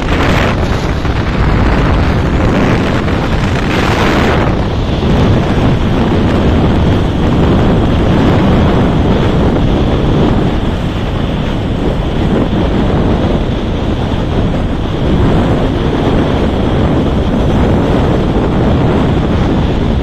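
Loud, steady wind rushing over the microphone of a phone held on a moving motorcycle at speed, with a stronger gust about four seconds in.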